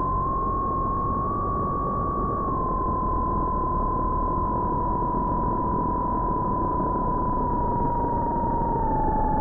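Brushless motors of a micro FPV quadcopter whining at a steady pitch under rushing prop and wind noise, heard from the drone's onboard camera. The pitch steps up slightly about a second in, settles back a little later, and sinks slowly near the end as the throttle eases.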